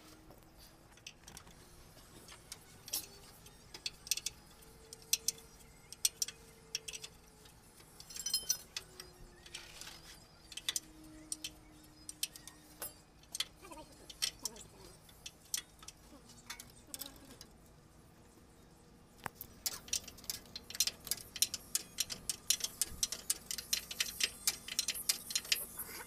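A wrench working the mounting bolts of a truck's power steering box, with scattered sharp metal clicks and clinks. From about twenty seconds in comes a quick, steady run of ticking.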